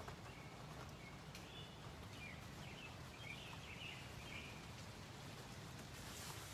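Faint, scattered bird chirps over a low, steady background hum.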